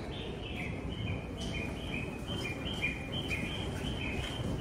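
Japanese railway station's electronic bird-chirp guide tone, which marks the stairs and escalators for visually impaired passengers. It is a two-note chirp alternating high and low, repeating evenly, over the low hum of the platform.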